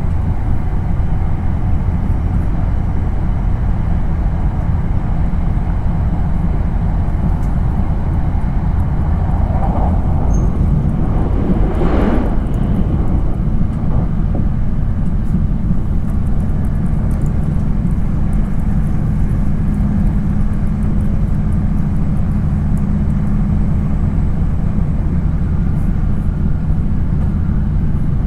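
Hokkaido Shinkansen train at speed, heard from inside the passenger cabin: a steady low rumble and rush of running noise. A brief louder whoosh comes about twelve seconds in, and a low steady hum joins from about fourteen seconds on.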